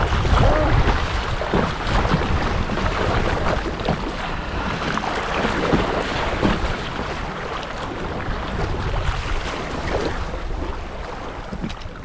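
River current rushing and splashing against the bow of a kayak moving through riffles, with wind rumbling on the microphone; it eases a little toward the end.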